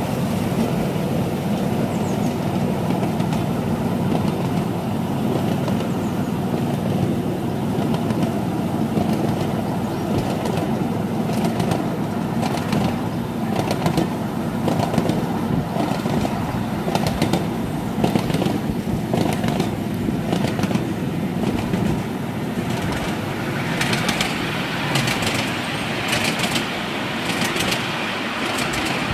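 Miniature railway train running, heard from a riding carriage: a steady low rumble of the wheels on the rails, with a series of short clicks of the wheels over the track from about a third of the way in. Near the end, as the train runs onto a bridge, the sound turns brighter and more rattling.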